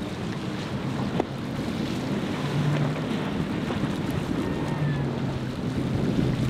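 Center-console boat's outboard engine running at speed through choppy inlet water, with the hull slapping and spraying through the chop and wind buffeting the microphone.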